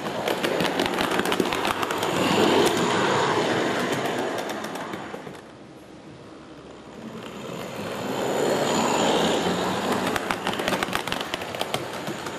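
O scale model trams rolling along the layout's track, a rumbling run with many rapid clicks from the wheels on the rails. It swells and fades twice, loudest about two to three seconds in and again around nine seconds.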